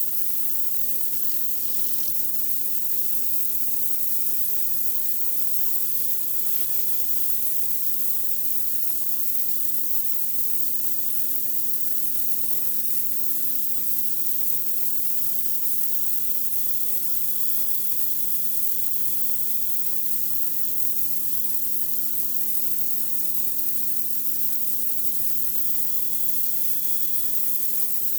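Pressure washer running steadily: a continuous high hiss of water spraying under high pressure over a steady low machine hum.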